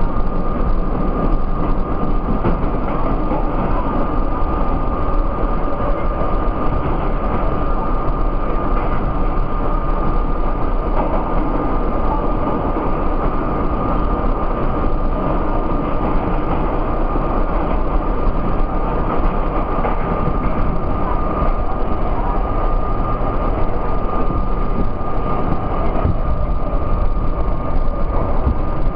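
Budd-built R32 subway car running through a tunnel: a steady loud rumble and clatter of steel wheels on rail, with a constant high whine over it.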